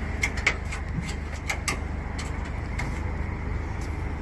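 Steady low rumble of an idling vehicle engine, with scattered light clicks and knocks.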